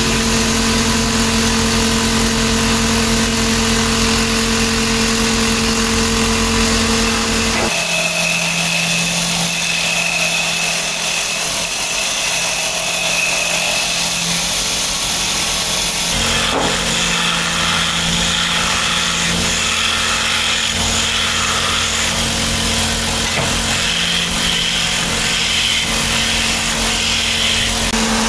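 Electric motor of a cue-making lathe running steadily while a sanding carriage rubs along the spinning wooden cue shaft. The sound changes abruptly twice, about eight and sixteen seconds in.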